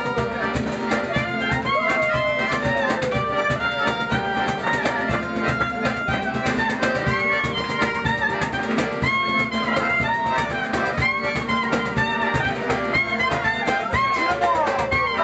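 Live acoustic band music: a clarinet plays a melody with sliding, bending notes over piano accordion chords and a strummed acoustic guitar, in a steady rhythm.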